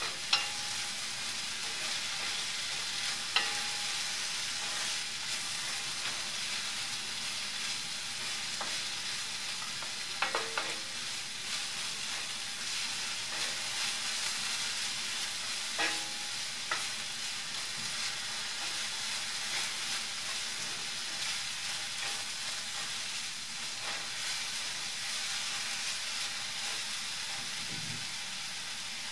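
Sliced red onions frying in coconut oil in a pan, a steady sizzle as they are stirred with a spatula, with occasional sharp taps of the spatula against the pan.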